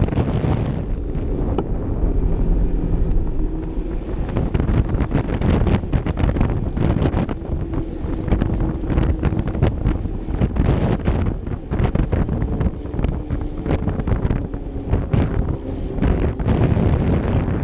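Heavy wind noise buffeting the microphone of a camera riding on a moving Vespa LXV 150 scooter, coming in uneven gusts. Underneath it, faintly, the scooter's single-cylinder engine runs at a steady road speed.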